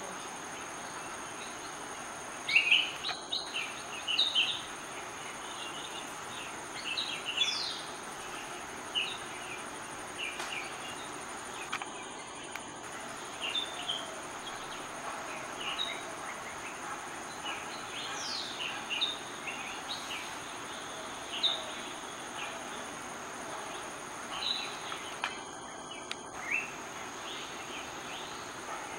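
Birds chirping and calling in short scattered notes, a few sliding down in pitch, over a steady high-pitched insect drone.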